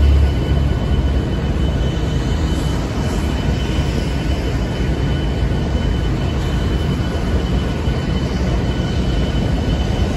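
Diesel locomotives in a rail yard making a steady low rumble, with a faint high whine held on one note throughout.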